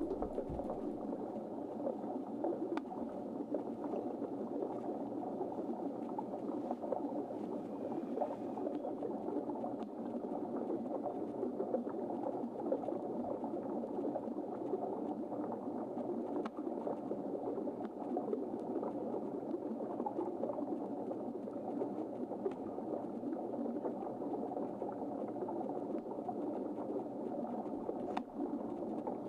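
Steady bubbling, churning water noise with no breaks.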